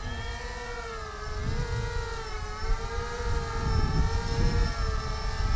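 Small FPV racing quadcopter's brushless motors and propellers whining at a steady, slightly wavering pitch, then winding down sharply near the end as the motors stop. Wind buffets the microphone throughout.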